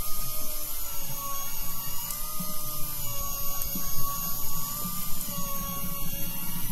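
Electric fishing reel's motor whining steadily as it winds line in under the load of a fish hooked deep, its pitch wavering slightly.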